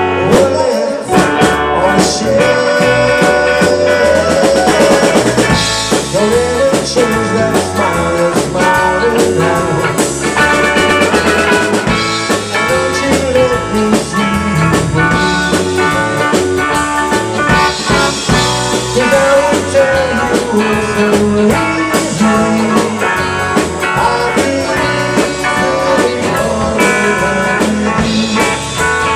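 A live band playing a blues-rock number: electric guitars over a drum kit with cymbals, steady and loud throughout.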